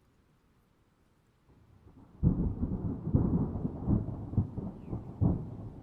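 Thunder: near silence at first, then about two seconds in a low rumble breaks in suddenly and rolls on with repeated sharp cracks.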